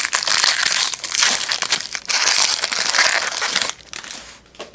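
Foil wrapper of a trading card pack crinkling and crumpling in the hands, in two loud bouts with a short break about two seconds in, dying away near the end.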